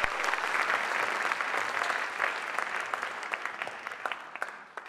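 Audience applauding, the clapping thinning out and dying away toward the end.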